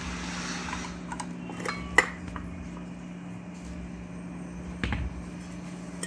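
Metal clinks and knocks from handling a ceiling fan's parts while working its rotor out of the housing: one sharp click about two seconds in, and a few quick knocks near the five-second mark.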